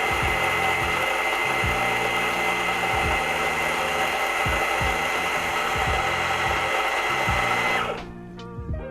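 Espresso grinder's motor running and grinding coffee beans, a steady whirring noise with a high whine that cuts off about eight seconds in.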